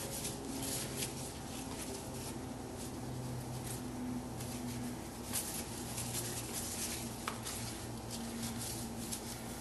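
Cleaning cloth wiping a smartphone's touchscreen: a run of short, irregular rubbing swishes, over a low steady hum.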